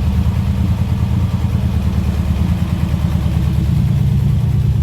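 1938 SS Jaguar 3½ Litre's straight-six engine running steadily on a test run after its rebuild.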